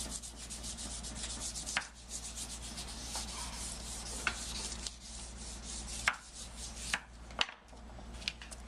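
The back of a wooden spoon rubbing quickly back and forth over paper on an inked printing plate, burnishing the print. Near the end the rubbing stops and a few sharp clicks follow.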